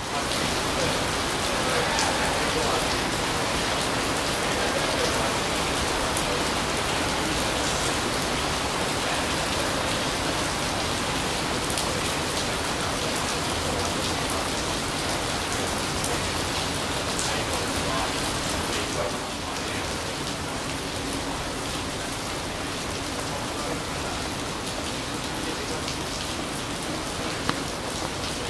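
Steady rain falling on wet decking and pavement, with the odd sharp drip close by. It eases slightly about two-thirds of the way through.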